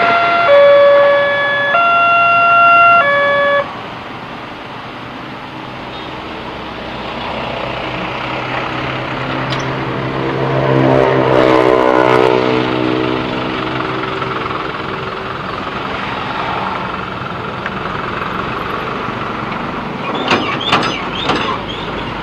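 Railroad crossing warning alarm sounding as a loud electronic chime that steps back and forth between a few fixed pitches, cutting off about three and a half seconds in. Then road traffic moving over the crossing, with a heavy vehicle's engine passing loudest around the middle and a few short horn toots near the end.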